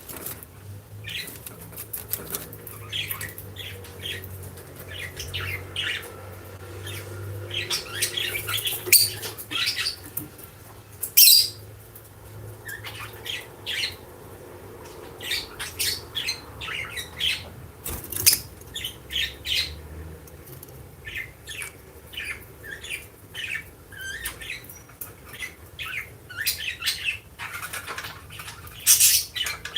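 Lovebirds chirping and squawking in many short, sharp, high calls, with a few much louder shrill calls now and then, over a faint low steady hum.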